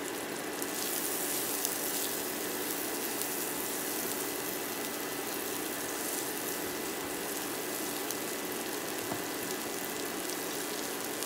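Broccoli frying in butter in a skillet over medium-high heat: a steady sizzle as the broccoli cooks and steams.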